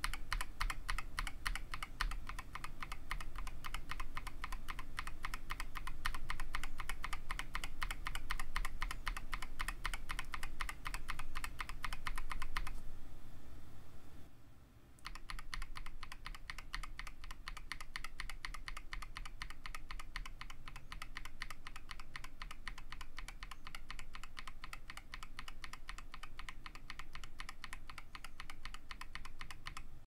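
Fast typing on KTT Kang White linear switches in a KBD67 Lite keyboard with an ABS plastic case and a polycarbonate plate: a dense, even run of keystroke clacks. About halfway through the typing stops for about two seconds, then resumes.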